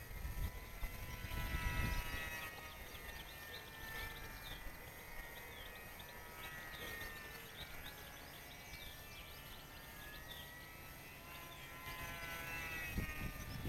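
A small RC model plane's motor and propeller drone overhead, the pitch slowly rising and falling as the plane circles and passes. Small birds chirp, and the wind rumbles on the microphone at the start and again near the end.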